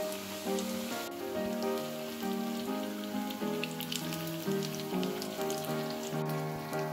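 Instrumental background music with a melody of changing notes, over the crackling sizzle of noodle-coated potato fritters deep-frying in hot oil in a wok.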